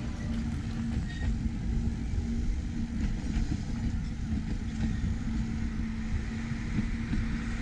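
Road vehicle driving at a steady speed: a steady low rumble of engine and road noise with a constant hum.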